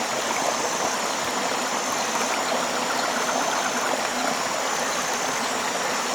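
Tropical river flowing steadily, a constant rush of running water, with a thin high tone that comes and goes above it.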